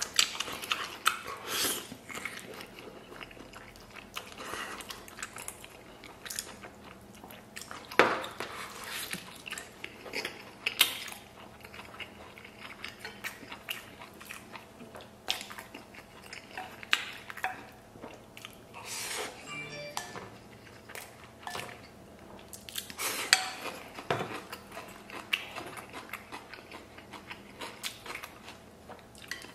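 A person biting tender braised lamb off the rib bone and chewing it, in irregular close-up crunches and clicks, with a few sharper knocks that fit chopsticks touching a steel rice bowl.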